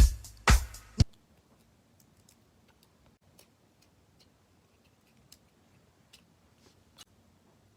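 A funk song with a heavy beat cuts off suddenly about a second in, followed by faint, scattered light clicks and ticks of small fidget toys being handled.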